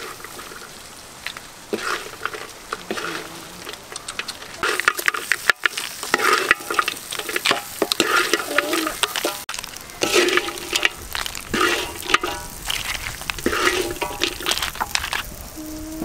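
Crabs and red chilies stir-frying in a metal wok: steady sizzling, with a metal spatula scraping and clattering against the pan. It gets louder and busier about five seconds in.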